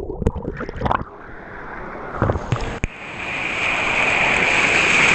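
Rushing water in a wild-water pool channel heard with the microphone under the surface: muffled splashing and bubbling in the first second, then a hiss of rushing water that grows steadily louder.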